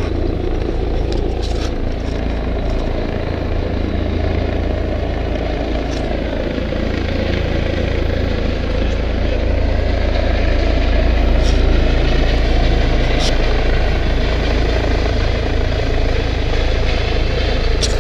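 Steady low rumble of road traffic and engines, with a helicopter coming in to land overhead; the sound grows a little louder around the middle.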